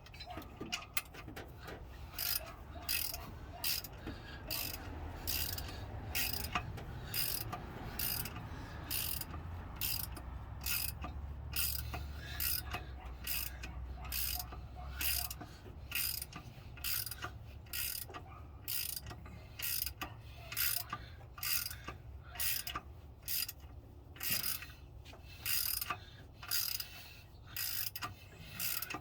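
Hand ratchet wrench clicking in a steady run, about two clicks a second, as a bolt is worked on the engine.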